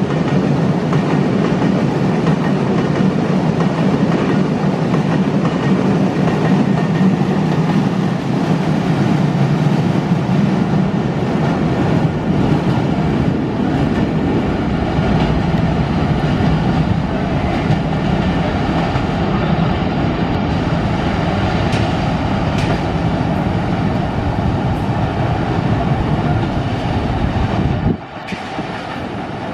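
Broad-gauge oil tank wagons of a freight train rolling past on the rails: a steady loud rumble with clicks of the wheels over rail joints. The sound drops suddenly near the end.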